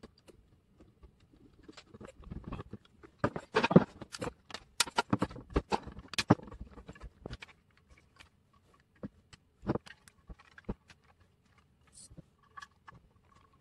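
Hard plastic clicking, snapping and rattling as a 1:32 scale RC model truck is pried apart by hand. The clicks come thick and fast for a few seconds, then only now and then.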